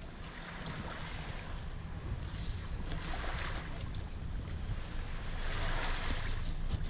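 Wind rumbling on the microphone over small waves lapping at the water's edge, the wash swelling twice, a few seconds apart.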